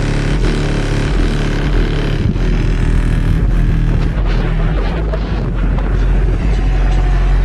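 Bass-heavy music played loud through a 12-inch JL Audio W7 subwoofer in a ported console box tuned to 35 Hz. Deep bass notes shift every second or so, with a rough, noisy edge over them.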